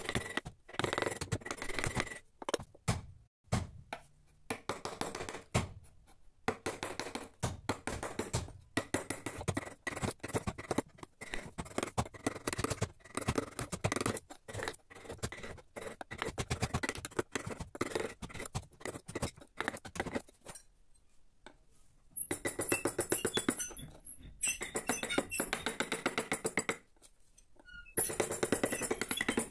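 Carving chisels and gouges cutting into teak by hand: a long run of short scraping cuts, broken by a couple of brief pauses, with music underneath.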